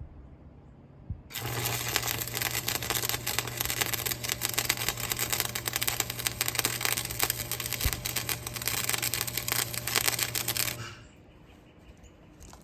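Electric arc welding: a steady, crackling arc runs for about nine and a half seconds over a low hum, starting about a second in and cutting off sharply near the end. It is a weld bead being laid, as hard-facing on a worn steel backhoe bucket.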